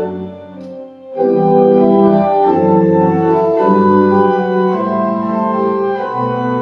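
Pipe organ playing sustained chords; the sound drops away briefly at the start, full chords return about a second in, and a deep bass note comes in near the end.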